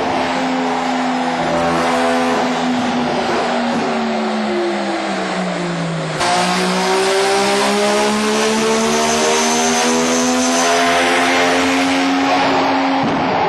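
Three-rotor Mazda 20B rotary engine running hard on a dyno. Its pitch sags slowly at first, then after a sudden break about six seconds in it climbs steadily through a long pull, dropping back near the end.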